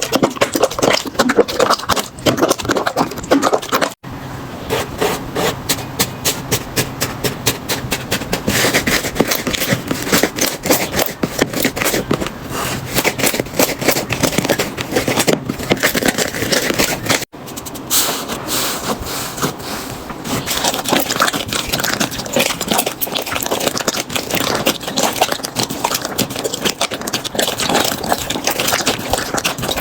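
Slime being squeezed and pressed by hand, giving dense rapid crackling and popping clicks. The sound breaks off abruptly twice and starts again, about 4 and 17 seconds in.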